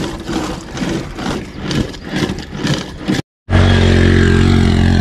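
Motorcycle engine running steadily, starting abruptly about three and a half seconds in after a brief silent gap. Before the gap there are uneven short knocking sounds.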